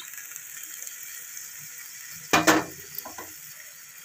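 Hot pan of chana dal and potatoes sizzling faintly and steadily as the dal's boiling water goes in. A little over halfway through comes one loud ringing clank of cookware against the pan, followed by a few lighter knocks.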